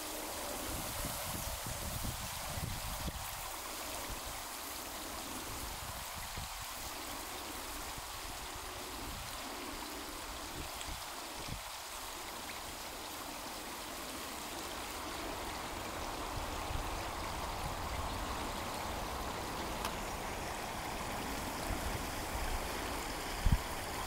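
Steady rush of water trickling through a beaver dam, over a low rumble, with a brief low thump near the end.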